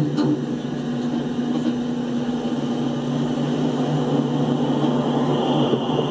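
Telehandler's diesel engine running with a steady drone as the machine drives along the tracks.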